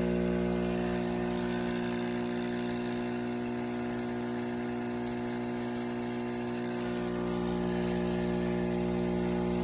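KEENSTAR 20-bar espresso machine's pump running with a steady buzzing hum while it brews a second round of coffee through the same grounds.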